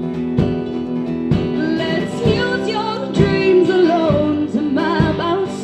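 Live band music: acoustic guitar strummed with a steady beat about once a second, and female voices singing a held, wavering melody over it.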